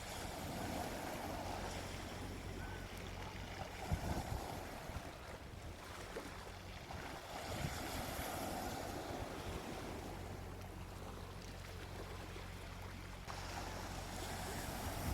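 Gentle sea waves washing onto a beach, swelling and falling back every few seconds.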